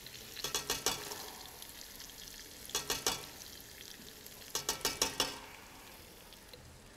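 Garlic and shallots sizzling softly in oil in a stockpot, with three short bursts of rapid clicking and crackling, about half a second, three seconds and five seconds in, as Thai chili paste in oil is spooned from a jar into the pot.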